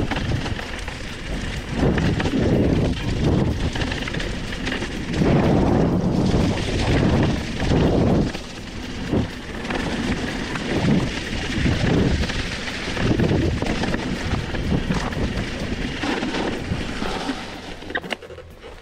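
Hardtail mountain bike rolling fast down a leaf-covered dirt singletrack: tyres crackling over dry leaves and the bike rattling over bumps, with wind rushing over the camera's microphone. It drops away near the end.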